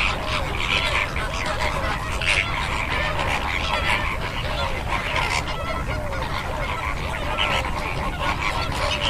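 A flock of greater flamingos honking, many calls overlapping without a break.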